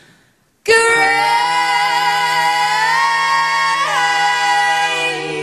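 Several women's voices come in together about a second in, singing a held chord in close harmony, with a slide in pitch near the middle. A low steady note sits beneath the chord.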